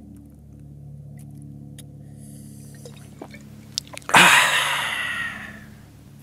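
A man's loud yell comes suddenly about four seconds in and fades over a second or so. Before it there are faint drips and water sounds over a low steady hum.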